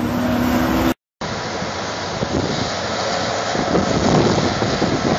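A Link-Belt hydraulic excavator's engine running with a steady whine, cut off abruptly about a second in. After that comes a steady noisy rumble of excavators working a dirt pile.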